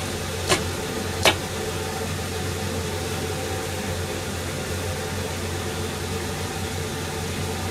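A steady, low machine hum with a hiss, and two sharp clinks about half a second and just over a second in.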